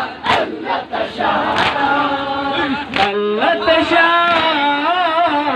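Shia noha recitation: mourners chant together with rhythmic chest-beating (matam), about three strokes a second, for the first second or so. Then a single male reciter sings a long, wavering lament line over the PA, with a few more strokes.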